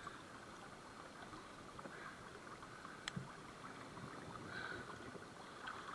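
Quiet, steady outdoor background rush with a single small click about three seconds in, and faint handling sounds while a small fish is unhooked.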